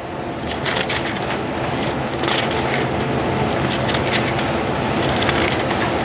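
Thin Bible pages rustling and flipping as they are leafed through, a steady papery crackle.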